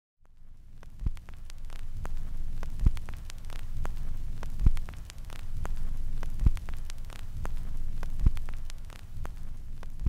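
Low rumbling hum with crackling static, struck by a heavy thud about every two seconds.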